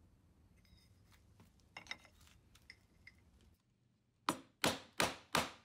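A few faint clicks, then, in the second half, four crisp cutting strokes of a wood chisel going into a board, about three a second.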